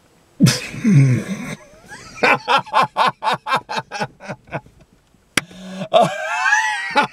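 A man laughing hard. An opening outburst gives way to a run of short, rhythmic 'ha' bursts at about four a second, then a high laugh that slides up and down near the end. A single sharp click comes about five seconds in.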